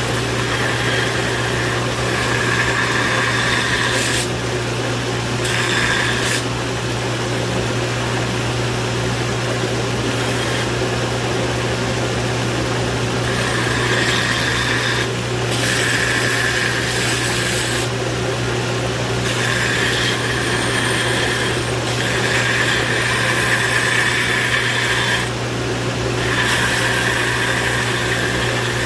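Electric grinder running with a steady motor hum, grinding the steel of a hand-forged hoe in repeated passes of a second or two, the hissing grind dropping away briefly between passes.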